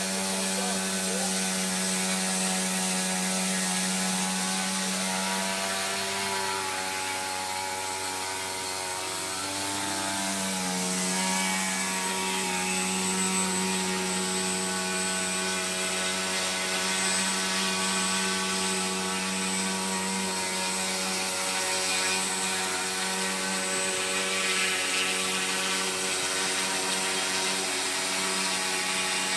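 Two-stroke O.S. 95AX glow engine of a radio-controlled helicopter running steadily at hover; its pitch dips briefly about ten seconds in, then recovers.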